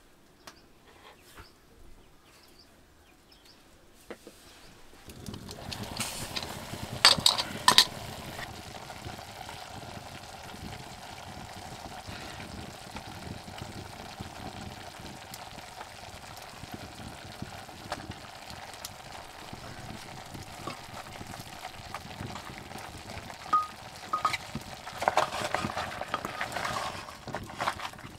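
Pieces of mutton sizzling steadily in an open pressure cooker pot, with loud sharp clinks of metal against the pot as salt and spices go in and the meat is stirred, twice in bursts. The sizzling starts about five seconds in, after a quiet stretch with faint taps of masala being ground on a stone.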